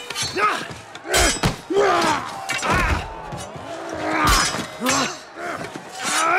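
Sword-fight sound effects: a run of irregular heavy blows, clashes and thuds of weapons, mixed with the grunts and shouts of the fighters.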